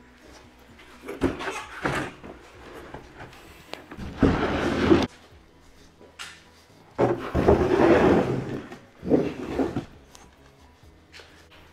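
Large HDPE plastic sheets and an OSB board being slid, scraped and set down on wooden sawhorse tables. There are several bursts of scraping and knocking, the loudest about four seconds in and again around seven to eight seconds in.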